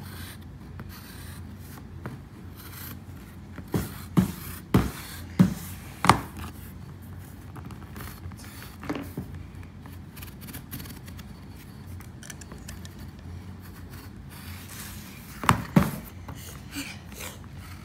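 Light handling noise on a cardboard tabletop: plastic toy glasses and chalk knocking and scraping, with a cluster of short taps about four to six seconds in and two more near the end.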